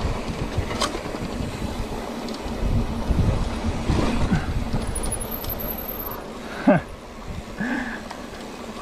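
Mountain bike rolling over rock and dirt trail: tyre noise, chain and frame rattle over bumps, and wind on the microphone. A sharp knock about seven seconds in, then quieter rolling with a short brake squeal as the bike slows.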